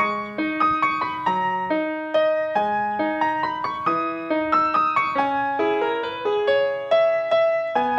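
Background music: a piano playing a gentle melody, a new note struck every fraction of a second.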